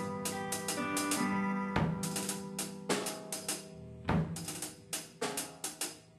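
Instrumental ending of a song: a drum kit playing hi-hat, cymbal and bass-drum hits over held instrument notes, the whole fading down toward the end.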